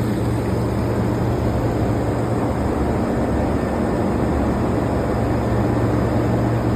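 Fiberglass cooling tower running: a steady drone from its fan with a constant low hum, over an even rushing noise of air and water passing through the tower.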